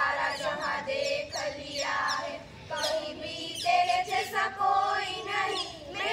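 A group of girls singing together in unison, with no instruments.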